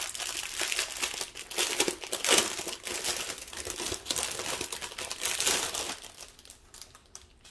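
Plastic packaging crinkling and crackling as it is handled, a dense run of crackles that thins out over the last second or so.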